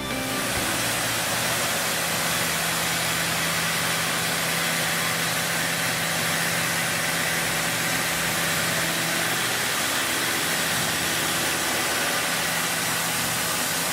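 Machine running steadily: an even hiss with a low, steady hum underneath.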